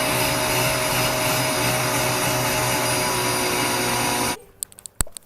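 Vacuum cleaner running with a steady drone, then switched off about four seconds in; a single sharp click follows near the end.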